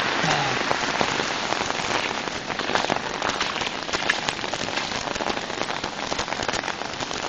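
Steady rush of muddy floodwater running across a flooded road, full of small splashes.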